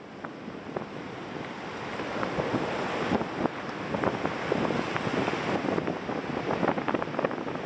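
Sea surf washing ashore in strong wind, with gusts buffeting the microphone. The sound swells over the first few seconds, then stays steady.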